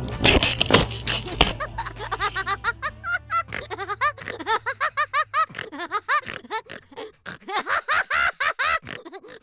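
Snowmobile crash: a few loud knocks as the machine and helmet camera tumble in the snow, over the sled engine's low hum, which dies away within a few seconds. Then a long run of rapid, bouncing laughter.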